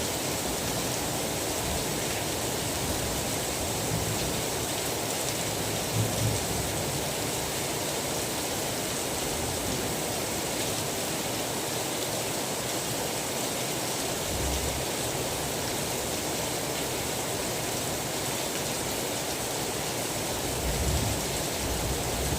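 Steady heavy rain with a constant hiss, broken by a few brief low rumbles about six seconds in, about fourteen seconds in and near the end.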